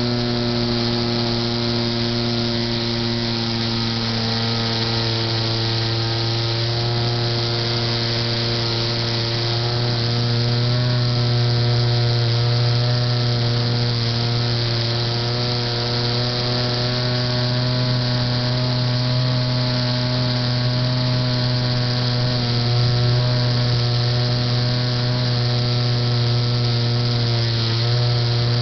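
A foam RC model airplane's motor and propeller, heard from on board, buzzing steadily, its pitch shifting slightly a few times.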